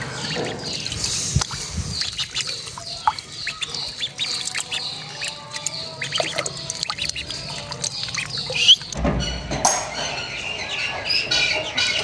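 Mixed backyard poultry and birds calling: scattered squawks and high chirps, with a short low rumble about nine seconds in.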